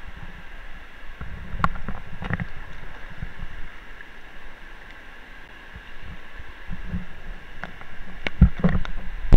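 Muffled low thumps and knocks from an action camera in a waterproof housing being handled and carried, over a steady background rush. The heaviest thumps come near the end.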